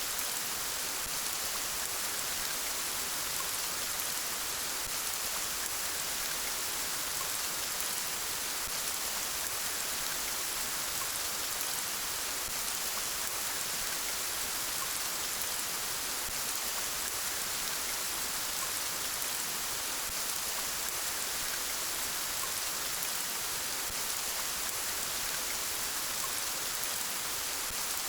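Steady rainfall, an even hiss of rain on a surface, with no breaks or changes.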